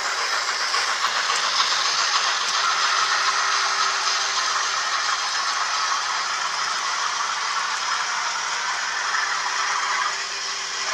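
OO gauge model train running along the layout: a steady rattle of its wheels on the track with a hiss over it and a thin, steady hum from the motor, easing slightly near the end.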